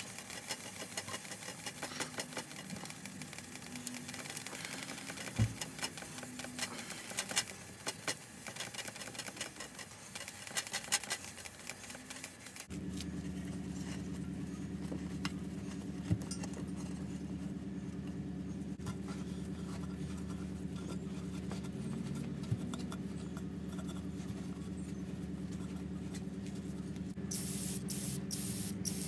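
A pad scrubbing brass sheet-metal water tanks, a dry scratchy rubbing with small knocks. About thirteen seconds in it gives way to a steady low hum, and short sharp bursts come near the end.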